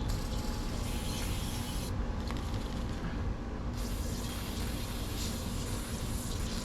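Metal belt buckle being cleaned with WD-40 and a microfiber cloth: two stretches of hissing, scrubbing noise, about a second long and then from just under four seconds in to the end, over a steady low rumble.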